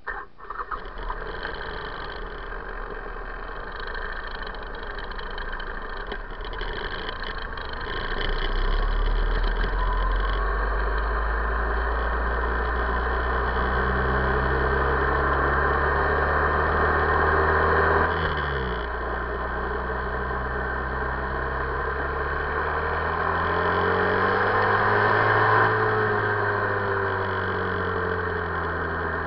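2008 Buell XB9SX's air-cooled V-twin running low at first, then pulling away and accelerating. Its pitch climbs through each gear and drops at two upshifts, about two-thirds of the way in and near the end, before it settles into a steady cruise.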